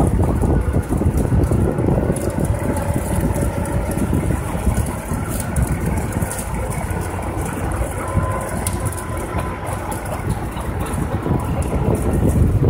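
Steady low rumble of an idling truck engine, mixed with wind buffeting the microphone.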